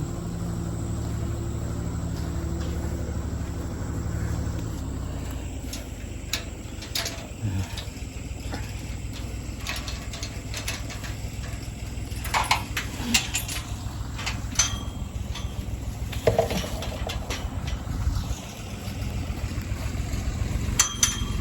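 Tractor engine running at a steady pitch, dropping away about four to five seconds in; after that, scattered clicks, knocks and rustling.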